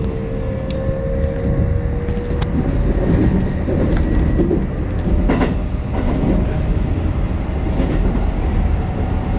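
Keikyu New 1000 series electric train running at speed, heard from inside the car: a steady whine from its Mitsubishi IGBT inverter and traction motors, rising slightly in pitch, fades out after about two and a half seconds, leaving a continuous wheel-on-rail rumble with several sharp clacks over rail joints.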